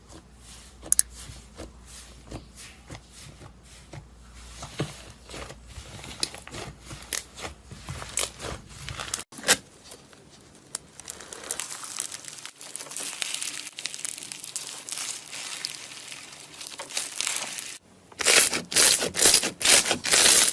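Slime being worked by hand, with sticky clicking and popping as it is stretched and pressed. This turns into a denser crackling, then about seven loud rhythmic squishes near the end.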